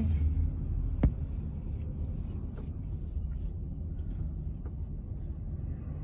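Steady low rumble of road noise heard inside a moving car's cabin, with a single short click about a second in.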